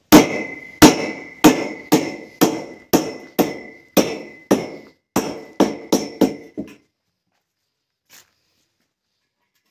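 A hammer striking metal: about fourteen sharp blows, roughly two a second, each leaving a brief high metallic ring. The blows stop about seven seconds in.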